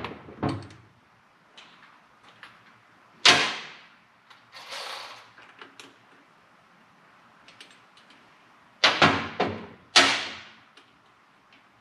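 Hand-tool work on an engine's cylinder head bolts: a few sharp metallic knocks and clanks, a loud one about three seconds in and a quick cluster around nine to ten seconds, with a short scraping rasp in between.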